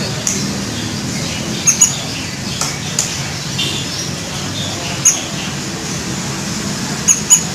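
Canaries giving short, sharp high chirps at irregular intervals, some in quick pairs, over a steady background hiss.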